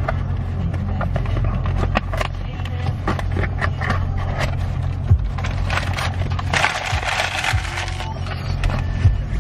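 Cardboard and paper wrapping crinkling and rustling as a gift box is unpacked by hand, with a denser burst of crinkling about seven seconds in. A steady low car-cabin rumble runs underneath.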